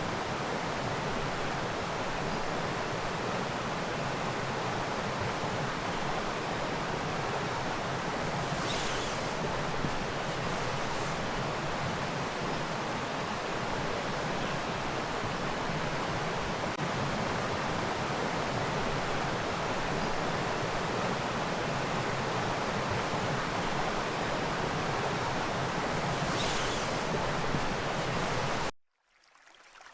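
River water rushing in a steady, even wash, cut off suddenly near the end.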